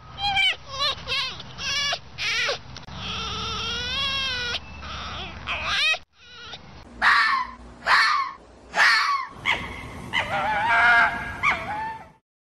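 Red fox calling: a run of short, high yelping barks with a longer wavering cry among them, then, after a brief break about six seconds in, several louder screaming calls about a second apart and another drawn-out wavering call.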